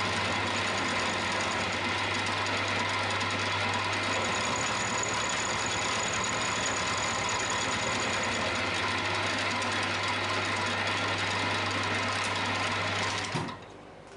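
Milling machine running with its end mill cutting the side of a steel crank web, a steady machining drone with a low hum and a high whine. It cuts off suddenly about a second before the end.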